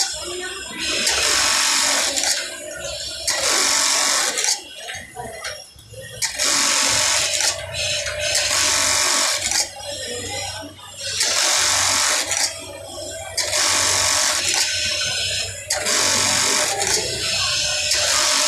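Industrial bartack sewing machine running one tacking cycle after another. Each cycle is a rapid run of stitches lasting about a second, and a new one starts every second or two.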